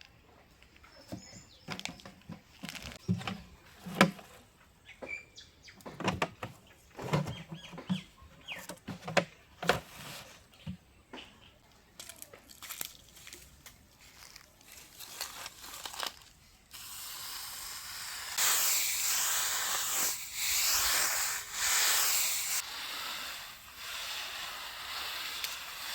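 Kitchen work sounds: a run of light knocks and clicks, then about 17 seconds in a loud steady hiss starts suddenly, grows louder a second later and eases a few seconds before the end.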